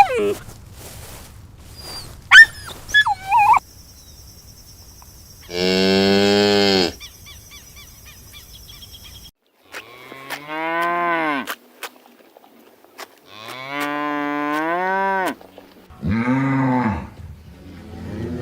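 Cows mooing: four long moos, each a second or two long. Near the start, a few short whines from a dog.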